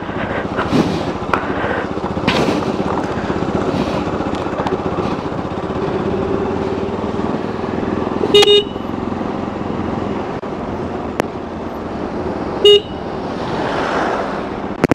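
Motorcycle running steadily, with two short, loud horn beeps, about eight seconds in and again about four seconds later.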